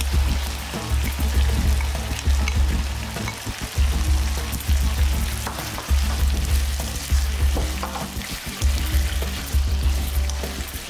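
Beef and vegetables sizzling in a frying pan as they are stir-fried in sauce, with a wooden spatula scraping and tossing them. Background music with a steady bass beat plays over it.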